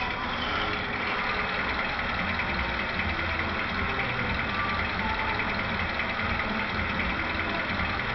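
Diesel locomotive engine idling steadily, the recorded sound of a Vossloh G2000 played by an ESU LokSound decoder through the small speaker of an HO-scale model locomotive.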